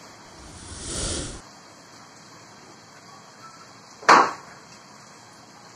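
A soft rushing noise swells for about a second and cuts off abruptly. About four seconds in comes a single sharp tap, the loudest sound here.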